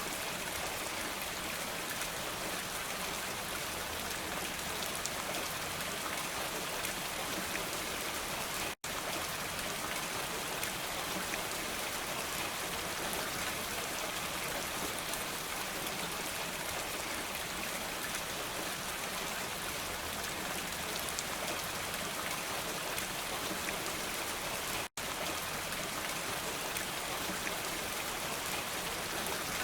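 Steady rain falling, an even hiss with no thunder. The sound cuts out to silence for an instant twice, about nine seconds in and again near the end.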